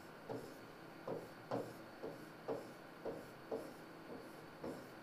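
Chalk writing on a chalkboard: a faint run of short taps and scrapes, roughly two a second, as numbers are written stroke by stroke.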